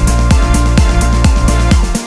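Electronic dance music with a steady fast beat, about four drum hits a second, over deep falling bass sweeps and synth lines.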